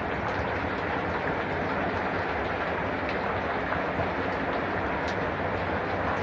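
Heavy rain falling steadily onto the water of a garden fish pond and the stones around it, a dense, even patter with no letup.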